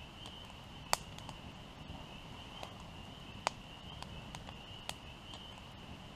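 Campfire crackling, with sharp pops at irregular moments, over a steady high trill of night insects.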